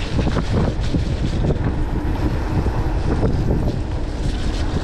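Mountain bike riding down a wet, muddy trail: wind buffeting the on-board camera microphone over a steady rumble, with many small knocks and rattles from the bike going over roots and rough ground.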